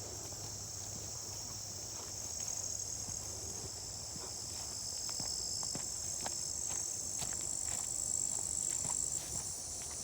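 A steady, high-pitched chorus of insects, with footsteps crunching along a woodland trail at a walking pace.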